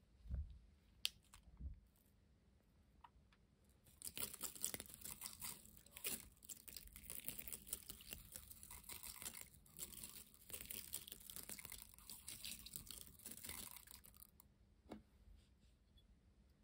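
Small beads poured from a plastic tube onto wet slime, a dense crackling patter lasting about ten seconds. It starts about four seconds in, after a few light clicks.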